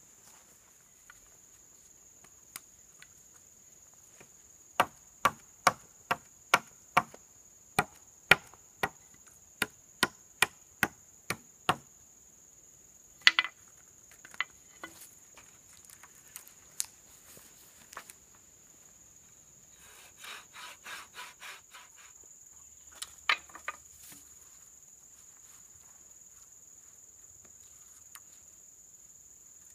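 Sharp knocks on wood, about fifteen at roughly two a second starting some five seconds in, then a few scattered knocks and a short quick rattle. A steady high-pitched insect drone runs underneath.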